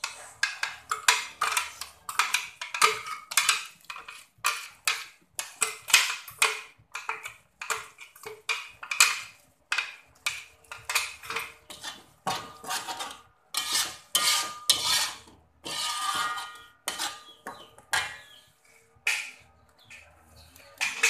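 Slotted metal spatula scraping and stirring a thick chili spice paste in an aluminium wok, in quick repeated strokes about two a second. Some strokes past the middle leave a brief metallic ring from the wok.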